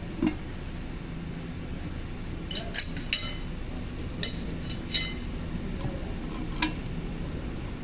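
Small steel bolts clinking and tapping against each other and against the metal steering knuckle and brake dust shield as they are handled and set into the bolt holes. There is a cluster of sharp, ringing clinks about two and a half to five seconds in, and one more near the end.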